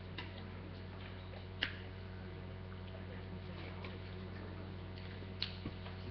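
Quiet room tone: a steady low hum with a few sharp clicks and taps, the loudest about one and a half seconds in and another near the end.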